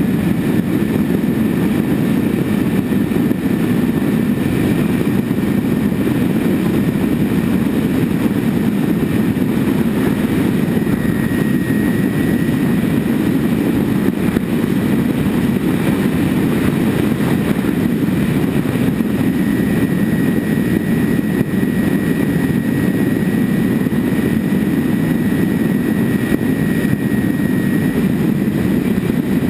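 Twin-motor Grand Cruiser RC model plane in flight, heard from its onboard camera: a steady rush of propeller and wind noise with a thin, high motor whine that steps up slightly in pitch a couple of times as the throttle changes.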